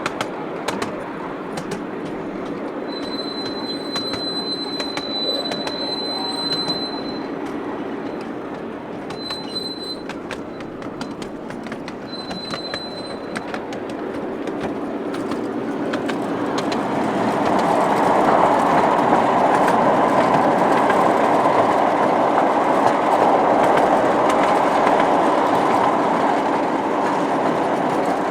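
Miniature railway train running along the track, its wheels clicking over the rail joints and squealing high and thin in a few short spells, as on curves. The running noise grows louder and rushing partway through.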